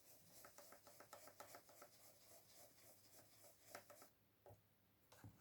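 Faint, quick dabbing and rubbing of a brush on card through a stencil, applying Distress ink: about four soft strokes a second at first, then a few scattered ones.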